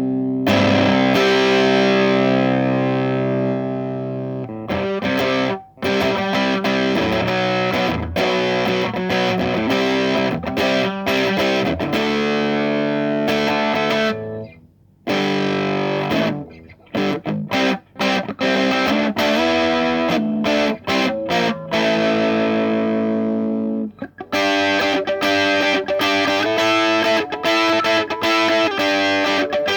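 Electric guitar played through a Russel RG 15 combo amp with a distorted tone. A held chord rings out first, then choppy chords and riffs with sudden stops. The playing breaks off briefly about halfway through and turns to a quick, busy riff over the last few seconds.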